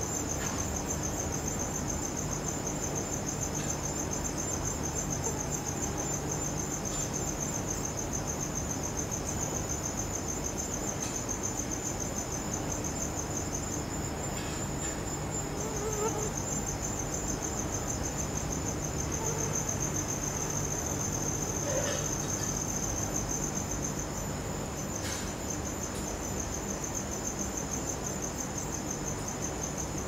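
Crickets trilling continuously in a steady, high-pitched pulsing ring, with a few faint ticks here and there.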